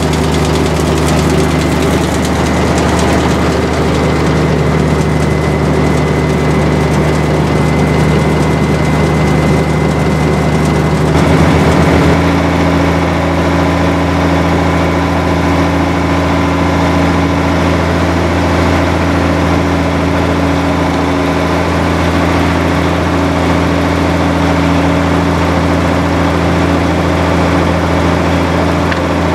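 Cat 3406 turbo diesel engine of a horizontal grinder running steadily; its note shifts abruptly about a third of the way through and then holds steady again.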